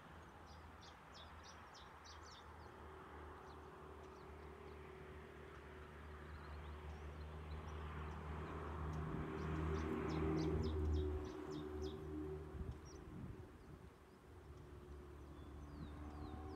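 A small bird chirps in two quick runs of short, high notes, one near the start and one about ten seconds in. Under it runs the low, steady hum of a distant engine, which grows louder about ten seconds in and then fades.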